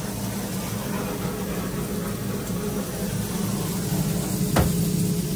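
Steady low hum of commercial kitchen equipment, with a single sharp knock about four and a half seconds in.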